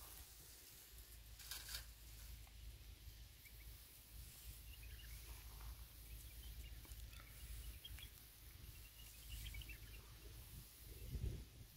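Faint outdoor ambience: a low wind rumble with scattered small bird chirps, and a brief rustle about one and a half seconds in.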